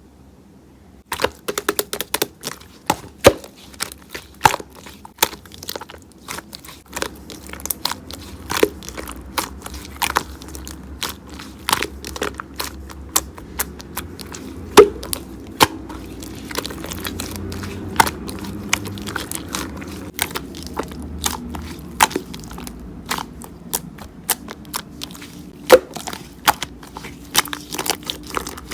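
Elmer's glue slime being squeezed and worked by hand, giving dense, irregular sharp clicks and pops that start about a second in.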